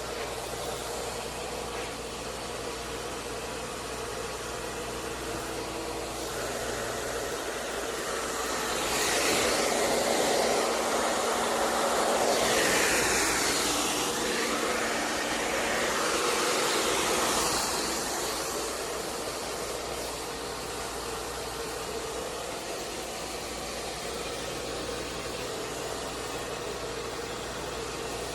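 Hair dryer running steadily into a soft bonnet hood attachment, a constant blowing hiss with a low motor hum. About eight seconds in the airflow grows louder and shifts for roughly ten seconds, then settles back.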